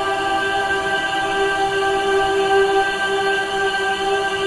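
Background music: a choir-like chord held steady, with no beat.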